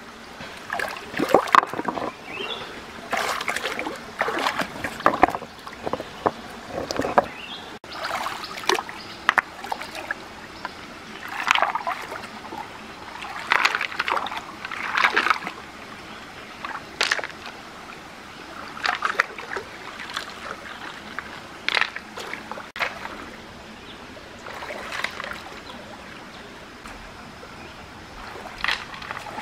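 Hands sloshing and splashing in a shallow rocky stream, in irregular bursts every second or two, over the stream's steady trickle.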